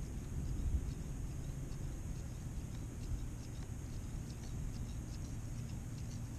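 Wind rumbling on the microphone out on open water, with faint scattered ticks throughout.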